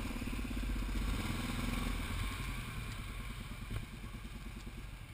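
Quad ATV engine running at low revs, a steady pulsing throb that gradually fades.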